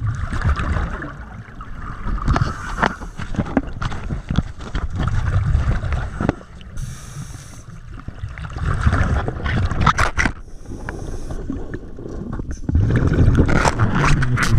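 Scuba diver breathing underwater through a regulator: hissing inhalations alternating every few seconds with rumbling, bubbling exhalations.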